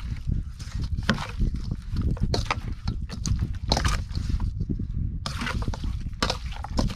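Water splashing and sloshing in irregular bursts over a low rumble.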